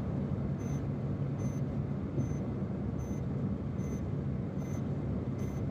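Steady road and engine noise inside a car's cabin at highway speed, a low even rumble. A faint high tick repeats about every 0.8 seconds.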